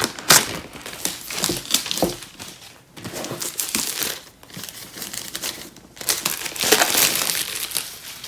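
Plastic wrapping being pulled off a product box and crumpled in the hands, crinkling and crackling in bursts, loudest near the start and again toward the end.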